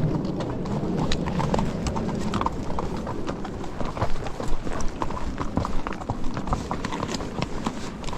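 Horses' hooves clip-clopping along a trail: a run of irregular clacks, some louder than others, over a low steady rumble.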